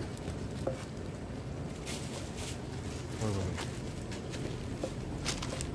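Kitchen knife knocking a few separate times on a wooden cutting board as steamed pork offal is sliced, over steady background noise. A brief murmur of a voice about three seconds in.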